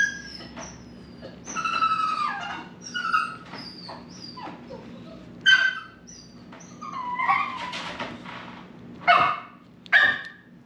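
A dog whining and whimpering in a run of short, high, falling cries, with a few louder, sharper cries among them.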